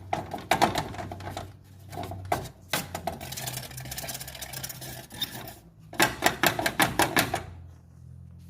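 Rapid plastic clattering and rattling from the broken blade of a JAC J6 radiator cooling fan, in several bursts with a dense run of fast clicks about six seconds in, over a steady low hum.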